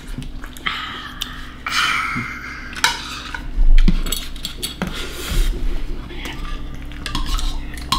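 Forks and spoons scraping and clinking against bowls and plates at a meal, with several sharp knocks, the loudest about four seconds in.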